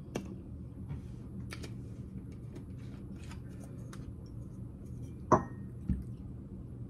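Eating at a table: faint scattered clicks of a utensil and food, then a sharp clink of a utensil against a dish that rings briefly about five seconds in, followed by a low thump, over a steady low hum.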